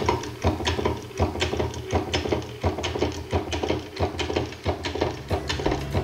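Bourbouze-type electromagnetic motor running, its mechanism clicking in a steady rhythm of about three strokes a second.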